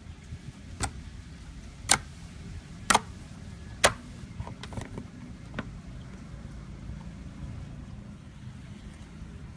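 Fingers poking and pressing into a soft galaxy slime, making sharp pops: four loud ones about a second apart in the first four seconds, then a few softer ones.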